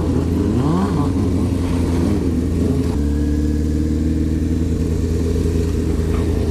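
Inline-four sport bike engine heard from on board. It revs up and down in quick sweeps for about three seconds, then holds a steady rev.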